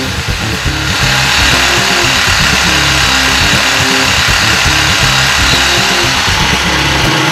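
Skil reciprocating saw cutting through the truck's metal exhaust pipe behind the catalytic converter; it starts about a second in and runs steadily.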